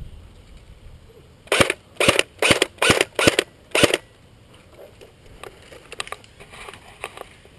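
Airsoft gun firing six sharp shots in quick succession, about two a second, starting about a second and a half in.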